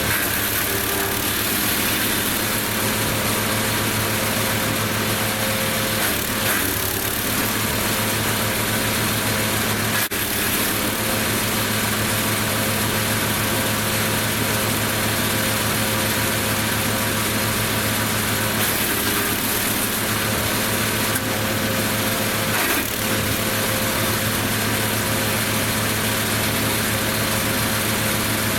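Engine of a Lumag Rambo HC15 garden wood chipper running at a steady speed while it chips laurel and conifer branches, with a single sharp click about ten seconds in.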